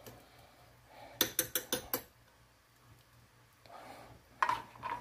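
Metal spoon clinking against a black earthenware pot while stirring noodles: a quick run of about five clinks a little over a second in, then two or three more near the end with a short ring.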